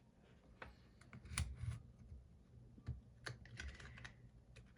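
Faint, scattered light clicks and taps of a thin metal pry tool working under the glued edge of an iPhone 14 Pro Max screen, prying the display up from the frame.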